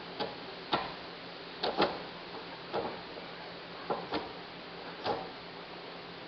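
Choke cable and carburetor choke linkage being worked back and forth by hand to test them: about eight sharp, irregular clicks and knocks over a few seconds. The cable is sticky.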